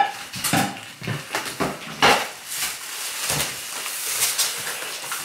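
Rustling and irregular knocks of a microwave's cardboard and foam packaging being handled during unboxing, with a sharper knock about two seconds in.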